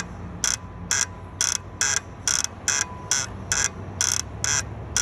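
Suzuki R06D three-cylinder engine running with an evenly repeating grinding scrape, about two a second, over a low engine hum. The grinding is a fault in the fan belt auto-tensioner.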